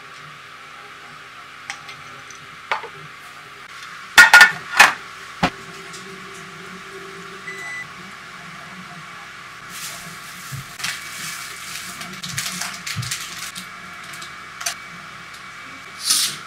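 Tableware clinking as food is plated with chopsticks onto a ceramic plate from a stainless-steel bowl: a cluster of loud sharp clinks and knocks about four seconds in, then lighter scattered taps and a short swish near the end.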